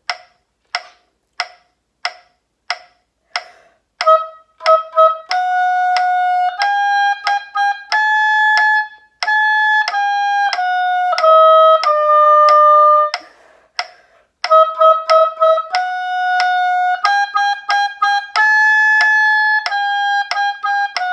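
A metronome clicks a little under twice a second as a count-in, then an oboe plays a slow beginner exercise in steady held notes using A-flat, E-flat, F, G and D. The clicks go on faintly under the playing, and there is a short pause for breath about two-thirds of the way through.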